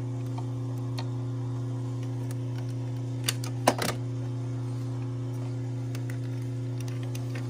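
Steady electrical hum of energised transformers, with a few sharp clicks a little past the middle from a clamp meter being handled at the compressor's terminal box.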